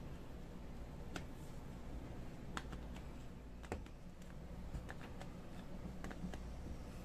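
Scattered light clicks and taps of a plastic Masterlise Gogeta figure being handled and turned at the waist, over a low steady hum.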